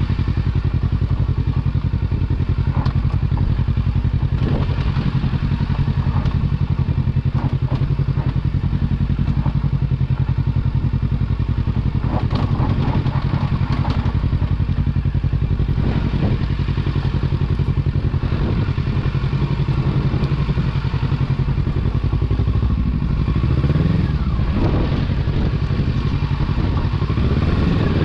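Kawasaki Versys 650's parallel-twin engine running steadily at low revs, with clatter and knocks as the bike jolts over a rough dirt trail. Near the end the engine note rises briefly.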